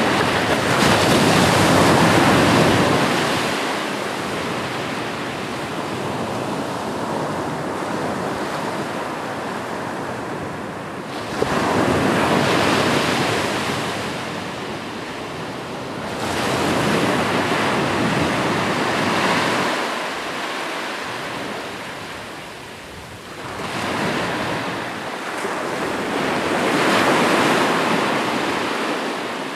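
Ocean surf: waves breaking and washing ashore, the noise swelling and ebbing in about four surges, one of them breaking sharply about a third of the way in.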